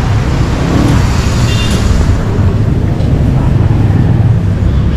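Street traffic: a steady rumble of passing vehicles, with people's voices in the background.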